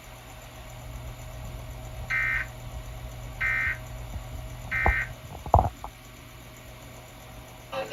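Emergency Alert System end-of-message data tones: three short, identical bursts of shrill warbling digital tones, about a second apart, that mark the end of the warning broadcast. A click and a low thump follow, the thump the loudest sound here, over a steady low hum.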